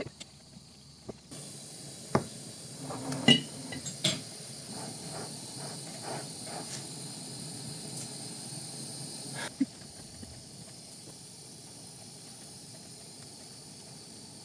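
A glassworking torch flame hissing steadily, with a few light clicks and taps in the first few seconds.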